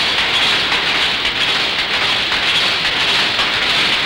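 Electronically controlled power loom running: a dense, fast, steady mechanical clatter.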